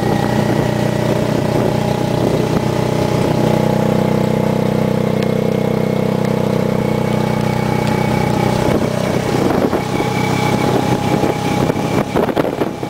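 Motorcycle-drawn tuk-tuk's engine running at a steady pitch, heard from the passenger seat while riding along the road.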